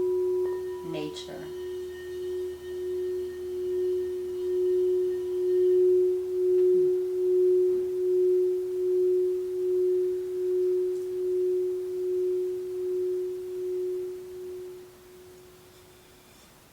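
F-sharp crystal alchemy singing bowl, tuned to 432 Hz, sounding one sustained tone with faint higher overtones. It swells for a few seconds, then slowly fades with a steady wavering pulse and dies away near the end.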